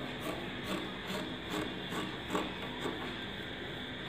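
Tailoring scissors cutting through fabric: a steady run of short snips, about two a second.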